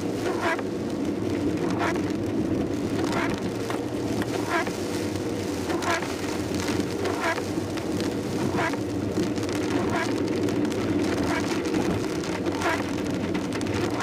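Inside a Suzuki Swift driving in heavy rain: steady engine and tyre noise on a wet road with rain hiss on the car. The windscreen wipers sweep about once every 1.3 seconds, each pass a short swish.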